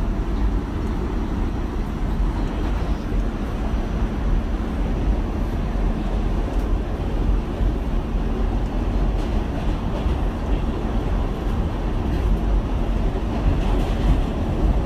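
New York City A-train subway car running, heard from inside the car: a steady, heavy low rumble of the train on the track, with a few faint clicks near the end.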